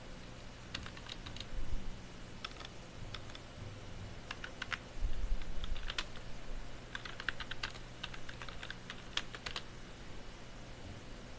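Typing: quick, light key clicks in about six short bursts, over a faint steady hum.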